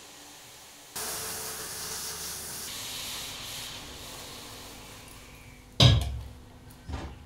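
Sandblasting gun in a blast cabinet firing aluminium abrasive: a loud, even hiss that starts about a second in and fades away over the next few seconds. Near the end come a sharp knock and then a lighter one.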